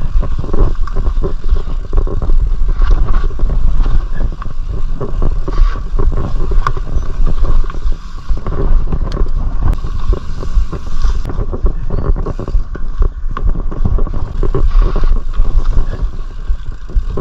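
Mountain bike being ridden over rough trail: a constant low rumble of wind and jolts on the body-mounted microphone, with frequent irregular rattles and clicks from the bike.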